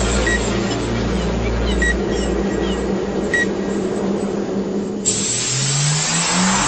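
Sound effects from a radio show's opening. A low steady hum with a few short high beeps, then about five seconds in a sudden rush of noise and a revving sound rising in pitch.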